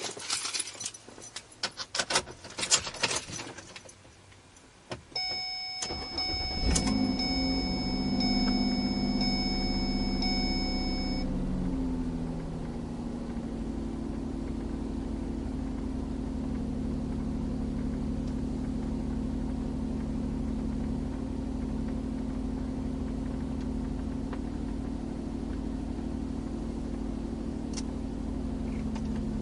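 Car keys jangling and clicking for the first few seconds, then a steady electronic tone from the dashboard comes on. About seven seconds in, the car's engine cranks briefly and starts, runs at a raised cold-start idle, drops to a lower steady idle around twelve seconds, and keeps idling.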